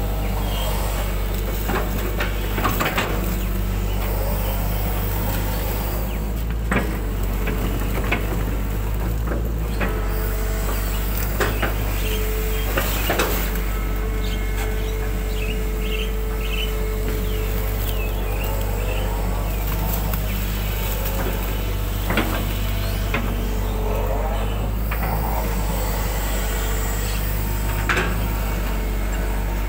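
Hitachi 120 hydraulic excavator's diesel engine running steadily with a constant hydraulic tone as the bucket digs and lifts mud from a ditch. A sharp knock comes every few seconds from the working boom and bucket.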